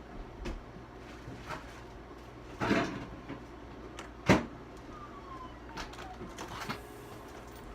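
A few scattered knocks and clicks of things being handled. There is a short rustling clatter near the middle, a single sharp knock about a second later that is the loudest sound, and a faint falling whistle-like tone after it.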